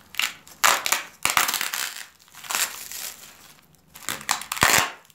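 Cling-film wrapping crinkling and corrugated cardboard packing rustling in several separate bursts as wrapped items are pried out of a cardboard insert.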